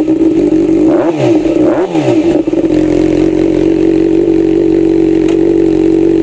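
2019 Kawasaki ZX-6R inline-four engine with a custom titanium exhaust, revved twice in quick blips that rise and fall. It is then held at a steady high pitch for the rest of the time.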